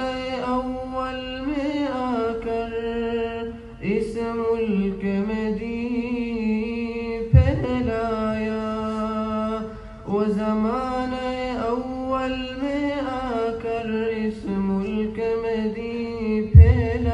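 A nasheed sung a cappella by a single voice, in long held notes broken by short pauses. Two low thumps sound over it, about seven seconds in and near the end.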